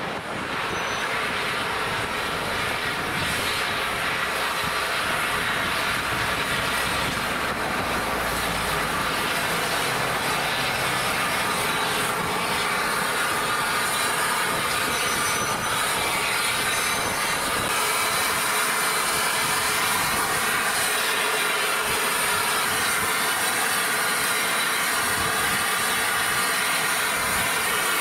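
Steam-hauled train rolling slowly along the rails, with a steady squeal from the wheels and the clatter of the train over the track.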